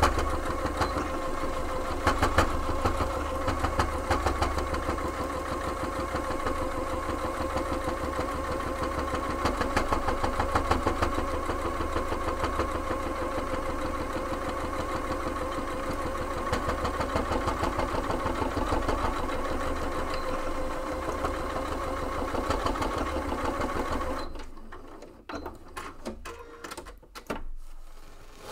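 Electric domestic sewing machine stitching a long straight seam at a steady speed: a steady motor hum with a rapid needle rattle, stopping abruptly about 24 seconds in, followed by a few light knocks as the fabric is handled.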